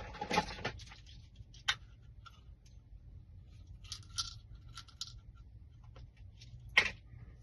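Metal lock-working tools clicking and clinking against a door lock cylinder as a shim is readied, in scattered light clicks with a brief scrape at the start and one sharp click near the end.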